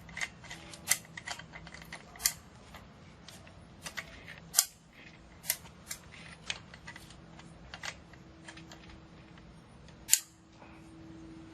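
Irregular clicks and knocks of an air hose's quick-connect fitting being handled and worked onto the compressor's coupler, which is not easy to hook up. Two sharper clicks stand out, about four and a half seconds in and near the end, over a faint steady hum.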